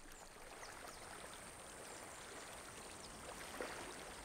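Faint babbling of a shallow stream running over rocks, a steady trickling wash.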